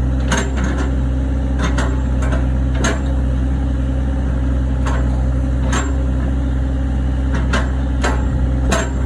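Wheel excavator's diesel engine running steadily, with sharp knocks at irregular intervals, about one a second, as the machine works.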